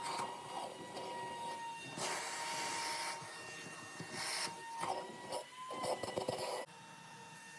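Water hissing and running at a water heater job, with a faint steady whine. It cuts off abruptly near the end to a quieter background hum.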